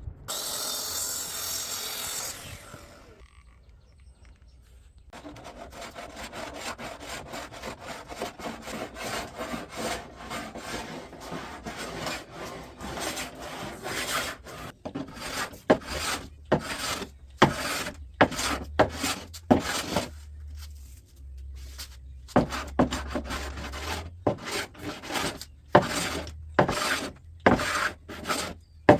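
Hand plane working a maple board: a long stroke at the start, a short pause, then a run of rasping strokes that turn into separate short passes, about one or two a second.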